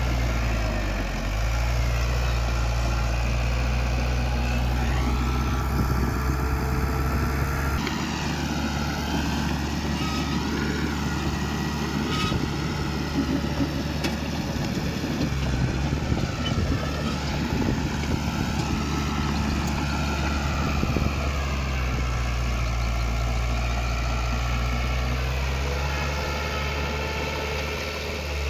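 Diesel engine of heavy earthmoving machinery running steadily, with a low hum and shifting mid-range engine tones; the sound changes abruptly about eight seconds in.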